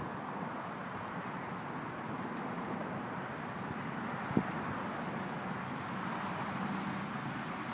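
Steady rushing outdoor noise with a faint low hum, broken by one sharp click about four and a half seconds in.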